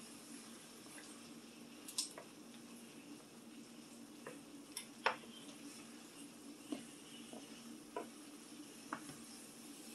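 Faint, scattered clinks and light scrapes of a utensil against a cooking pan as food is stirred, about eight in all, over a steady low hum.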